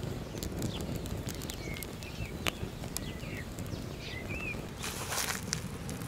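Wood fire crackling with scattered sharp pops as the split logs catch, while small birds chirp a few short calls in the background.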